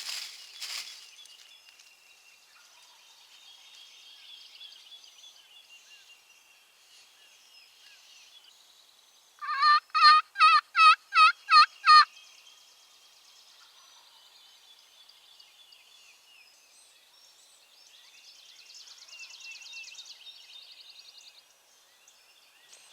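A loud series of seven turkey yelps about halfway through, evenly spaced at about three a second, over faint songbirds singing at dawn.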